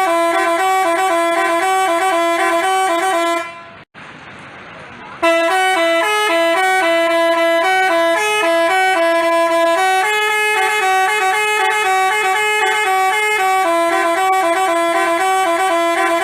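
Telolet basuri multi-tone bus horn playing a fast tune of short, quickly alternating notes. It breaks off for about a second and a half a few seconds in, leaving only background street noise, then starts again and plays on.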